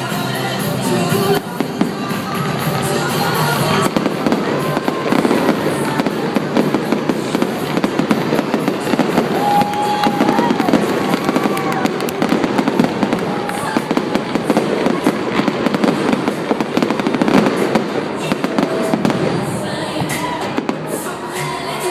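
Fireworks going off in a dense, rapid barrage of bangs and crackles that thickens about four seconds in and thins near the end, over pop music on the stadium loudspeakers.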